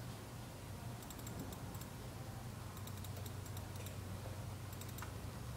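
Faint computer keyboard typing: short clusters of quick key clicks about once a second, over a steady low hum.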